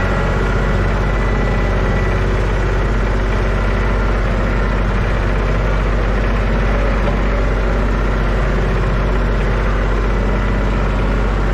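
New Holland TC33 tractor's diesel engine running steadily as the tractor drives along, heard from inside the cab.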